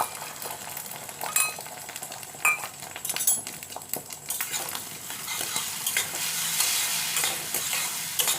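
A few utensil clicks against a bowl, then about four seconds in, beaten egg poured into hot oil in a nonstick kadai starts to sizzle with a steady hiss that builds and holds.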